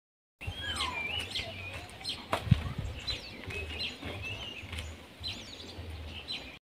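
Small birds chirping and calling, many short whistled notes gliding up and down, with a single sharp click about two and a half seconds in.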